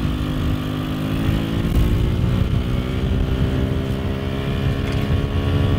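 GY6 150cc four-stroke scooter engine of an off-road go kart pulling at full throttle on a top-speed run. Its note holds nearly steady while the kart gathers speed.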